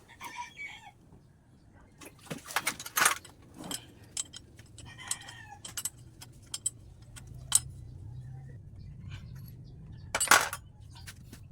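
Metal tools and engine parts clinking and knocking at irregular moments, with a loud knock about ten seconds in. A chicken clucks in the background twice, at the start and about five seconds in.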